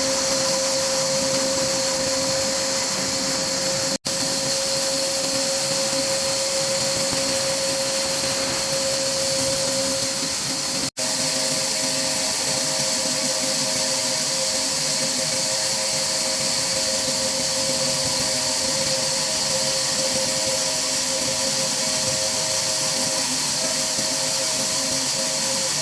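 Woodworking machinery running steadily: a constant hiss with a steady whine, broken twice by a very short drop to silence, about four and eleven seconds in, after which a second, slightly higher whine joins.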